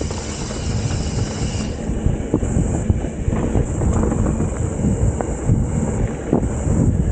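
Mountain bike rolling fast over a dirt singletrack: a steady rumble of tyres on the ground with constant rattling and knocks as the bike bounces over bumps and roots.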